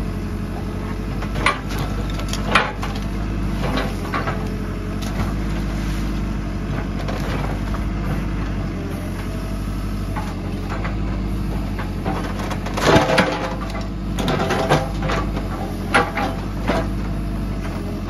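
JCB backhoe loader's diesel engine running steadily while its digging bucket knocks and scrapes against a concrete wall and brick rubble, with sharp cracks and crunches of breaking masonry. The knocks come twice in the first few seconds and then in a louder cluster from about thirteen seconds in.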